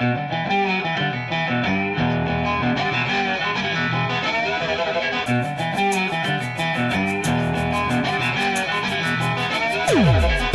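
Background music with guitar and a steady beat. A quick high ticking percussion joins about halfway, and a falling pitch sweep comes near the end.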